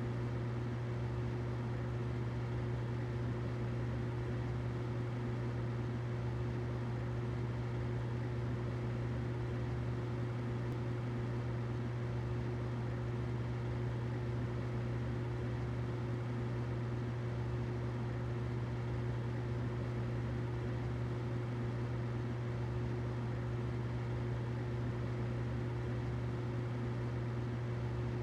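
Humidifier running: a steady low hum with a fainter higher tone over a soft, even hiss, unchanging throughout.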